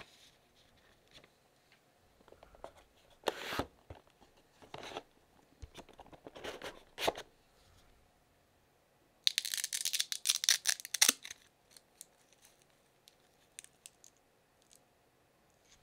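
Rustles and light knocks as paper booklets and the cardboard box are handled. About halfway through comes a loud ripping crackle lasting about two seconds as the strap bundling a laptop power cord is pulled open.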